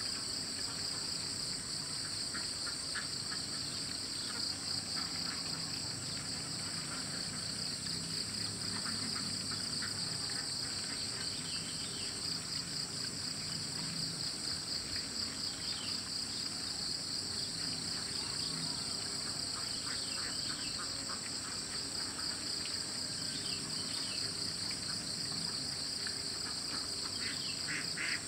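A steady, shrill chorus of insects, pulsing finely without a break. Faint chirps sound now and then beneath it, and near the end a louder run of repeated calls begins.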